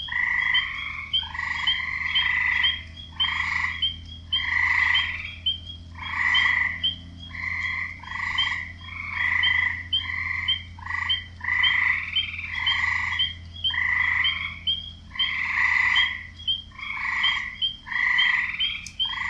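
Frogs calling in a wetland chorus, loud croaking calls repeating about once a second and overlapping, with a quick train of short high chirps running between them and a faint steady low hum beneath.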